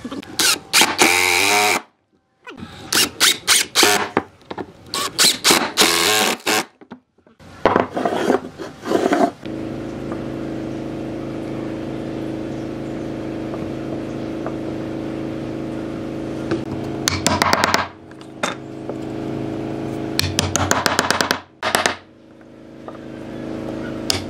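Workshop sounds of wooden parts being handled and fitted: bursts of knocking and clattering, with a steady low hum through the middle and again near the end.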